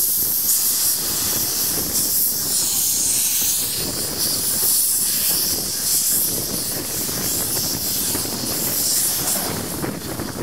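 Abt rack steam locomotive venting steam with a loud, steady hiss.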